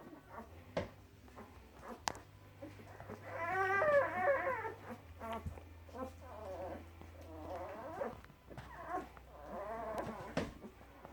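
Puppies whimpering and whining: a run of high, wavering cries that rise and fall, the loudest about four seconds in, with a few small clicks and knocks between them.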